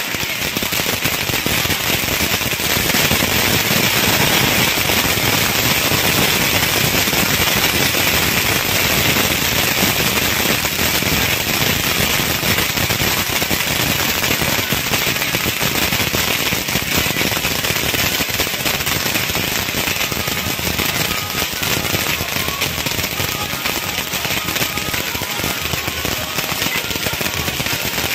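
Firecrackers bursting in a rapid, unbroken stream of bangs, like a long string of crackers going off.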